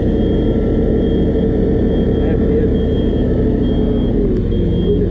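An engine running steadily close by, giving a constant low rumble, while a truck's reversing alarm beeps about once a second in the background.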